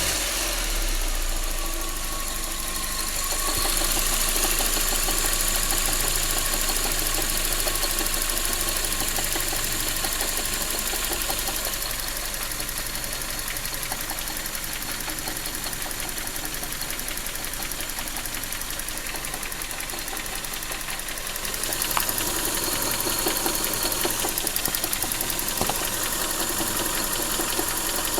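Toyota 5A four-cylinder petrol engine idling just after a start, with a steady, even knock running through it whose cause the owner doesn't know. It gets a little louder about three-quarters of the way through.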